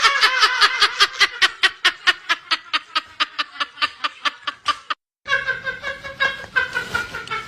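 A person laughing hard in a long run of rapid 'ha' pulses, about five a second, that cuts off abruptly about five seconds in and picks up again more loosely.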